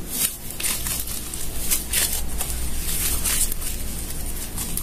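Butter slime made with soft clay being kneaded and stretched by hand, giving a run of irregular sticky squishes and crackles.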